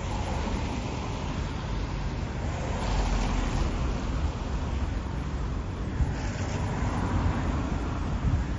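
Cars driving past close by, their tyre and engine noise swelling as each one passes, about three seconds in and again near six seconds, over a steady low rumble of traffic.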